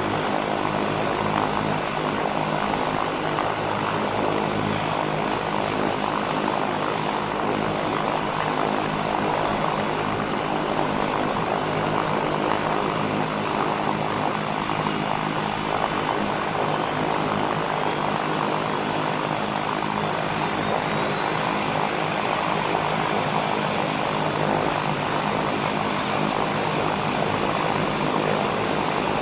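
Propeller airplane engine running steadily at a constant drone. A faint high whine rises in pitch from about two-thirds of the way through.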